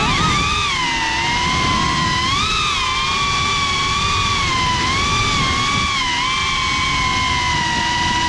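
GEPRC CineLog35 FPV quadcopter's motors and propellers whining in flight, the pitch swelling and dipping again and again with the throttle, over a low rushing noise.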